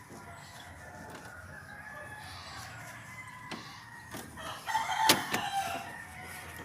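A rooster crowing, loudest about five seconds in, with a few sharp clicks mixed in.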